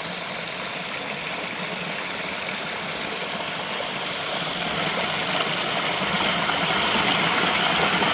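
Small waterfall rushing and splashing steadily, growing somewhat louder about halfway through.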